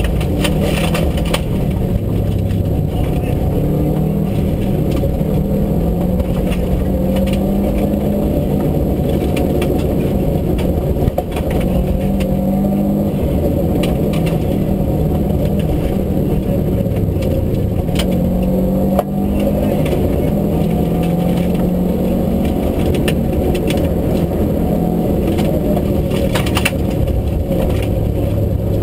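Rally car engine heard from inside the cabin, revving up and down through gear changes at speed on a gravel stage, with stones and gravel clicking against the car. Two sharper knocks stand out, about 11 and 19 seconds in.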